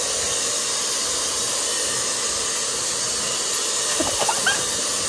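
Handheld pet hair dryer running, blowing a steady hiss of air.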